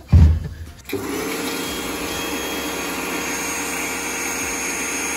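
A brief low thump, then about a second in a pressure washer runs steadily: an even motor-and-pump whine over the hiss of the water jet.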